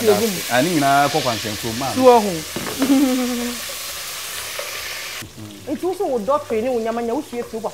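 Food frying in a pot: a steady sizzling hiss that cuts off abruptly about five seconds in. Voices talk over it.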